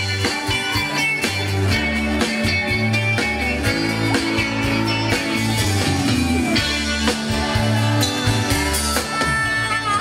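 Live band playing an instrumental passage with no vocals: electric guitars, bass and drums.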